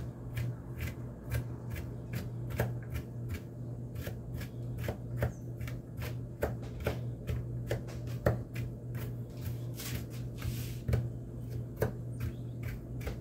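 Chef's knife mincing garlic on a cutting board: a quick, uneven run of knocks of the blade on the board, about two to three a second, over a steady low hum. There is a short scraping sound about ten seconds in.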